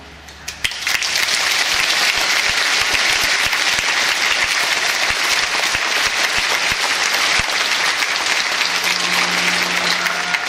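A theatre audience applauding, starting about half a second in and holding steady and loud. A low held note from the orchestra comes in under it near the end.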